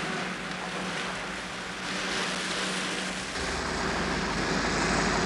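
Bus engine running as the bus approaches, a steady hum getting gradually louder, with a deeper rumble coming in about three and a half seconds in.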